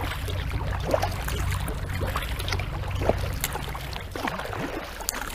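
Kayak paddle strokes on the water: irregular small splashes and water dripping off the paddle blades.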